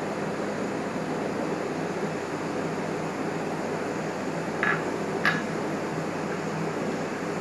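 Steady, even background noise of a small room, with two short light clicks about halfway through.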